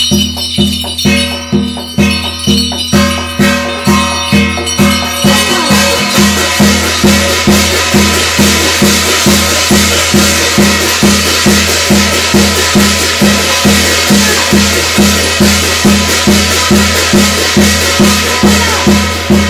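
Korean shamanic ritual (gut) percussion: a steady drum beat at about two and a half strokes a second with jangling rattles. About five seconds in, a continuous shimmering crash, like cymbals being played, joins and stays to the end.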